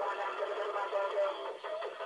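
A man rapping into a handheld microphone, with music, played back through a television speaker so it sounds thin, with no bass.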